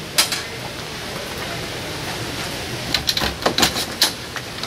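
Scattered sharp clicks and knocks of handling, one about a quarter second in and a quick run of them between three and four seconds in, over a steady hiss.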